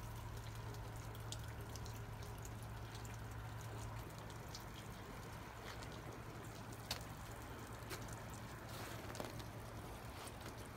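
Water dripping in scattered, irregular drops over a steady low hum.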